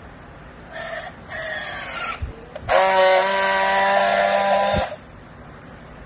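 Battery-powered handheld strapping tool working a plastic strap around a bale: its motor runs in two short bursts, tensioning the strap, then a louder steady buzz for about two seconds as it friction-welds the strap, ending with a click.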